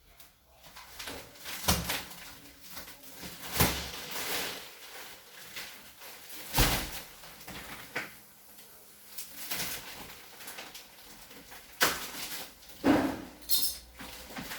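Plastic wrapping of a vacuum-packed foam mattress being handled and cut open: irregular crinkles, rustles and knocks, a handful of louder ones spread through.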